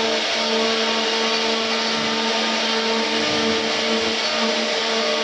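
3-axis CNC router carving wood: the steady whine of the high-speed spindle over the hiss of the bit cutting. Its tones break off and come back every second or so as the cut goes on.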